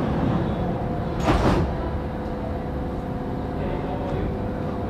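Berlin U-Bahn G1/1E train standing at the platform with a steady low hum, and a short hiss of air about a second in.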